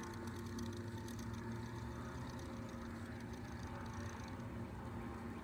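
A boat motor humming steadily at an even pitch.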